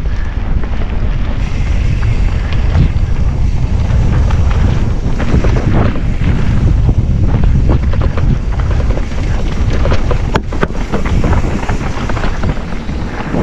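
Wind rushing over a GoPro action camera's microphone during a mountain-bike descent. The bike knocks and rattles often as its tyres run over rough trail.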